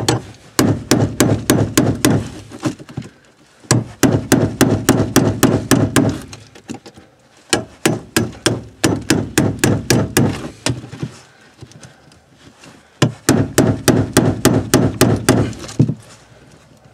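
Hammer blows on a wood chisel chipping out OSB subfloor, in four quick runs of strikes about four a second with short pauses between.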